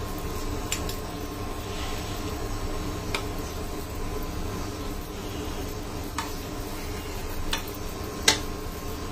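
A metal spatula stirring a thin fish and okra curry in a granite-coated wok, with a few sharp clicks of the spatula striking the pan, the loudest near the end, over a steady hum.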